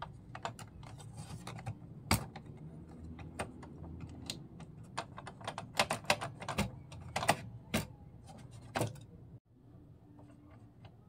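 Irregular small clicks and taps from hands handling the tonearm mechanism of an ADC 1600DD turntable, over a low hum that stops near the end.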